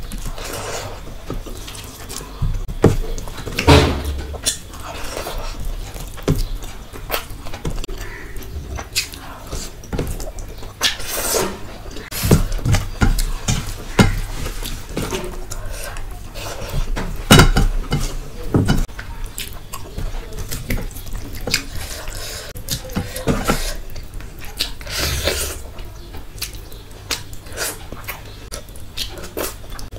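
Eating sounds of a person eating rice and curry by hand: chewing and lip smacking, with wet squishing as fingers mix rice and gravy on a steel plate. Irregular clicks and taps come throughout.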